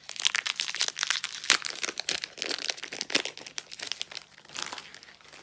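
Plastic-foil Magic: The Gathering booster pack wrapper crinkling as it is torn open and handled, a dense run of crinkles that thins out near the end.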